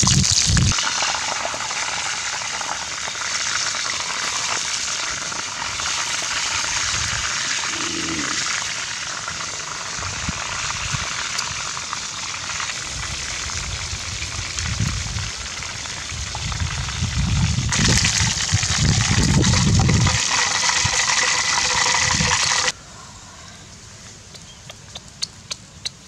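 Chicken leg quarters deep-frying in hot oil in a wok, a steady dense sizzle and bubbling with a few low thuds. The sizzle cuts off suddenly near the end, leaving a quiet background with a few faint clicks.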